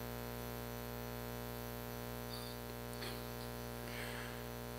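Steady electrical mains hum with many overtones, a buzz in the recording chain. A few faint rustles near the middle and toward the end.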